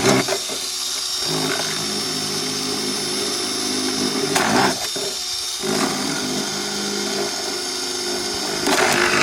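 Electric drill running steadily while boring drainage holes through the bottoms of plastic jugs, with a short pause a little past halfway.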